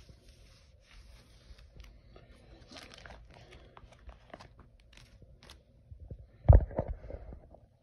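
Plastic pocket pages of a trading-card binder being handled and turned, crinkling and rustling, with one louder thump about six and a half seconds in and a few smaller knocks after it.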